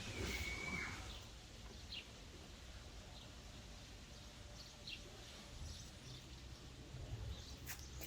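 Faint bird chirps, short and scattered, with one brief steady whistle near the start, over a low background rumble.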